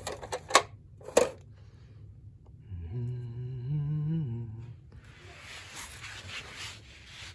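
A few sharp plastic clicks and knocks as a toy dollhouse is swung shut, then a person humming one short note-line for about two seconds, pitch rising slightly, followed by a soft rustling hiss.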